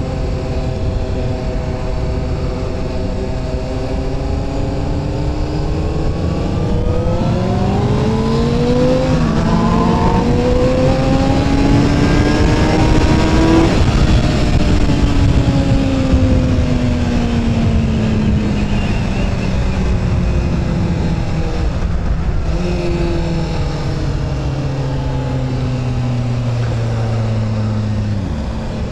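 Honda CBR sport motorcycle engine accelerating, its pitch climbing with two brief dips at gear changes, then falling in one long steady glide as the bike slows. A steady rush of wind noise runs underneath.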